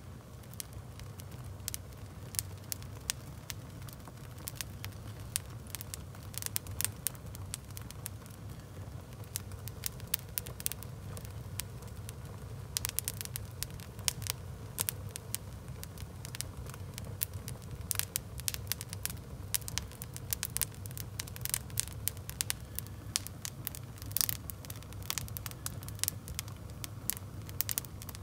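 Wood fire with sneakers burning on the logs, crackling: a steady low rumble of flame under frequent sharp pops, which come thicker from about halfway on.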